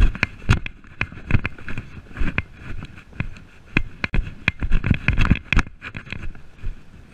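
Pony cantering on grass: a quick, uneven run of hoofbeat thuds with the tack rattling and clinking.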